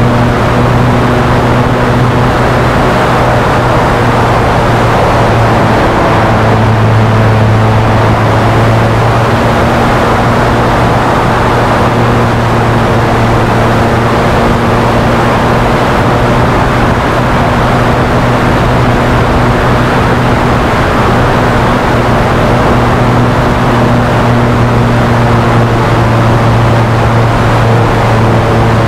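The 60cc gasoline engine and propeller of a large radio-controlled Spitfire in flight, heard from a camera on its tailplane: a loud, steady drone with a strong low hum, swelling slightly several seconds in.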